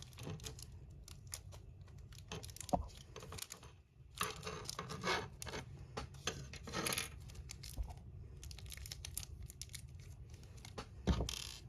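Small plastic parts bag being rustled and torn open, with light clicks and taps of tiny screws and plastic model parts being handled, and a single louder knock near the end.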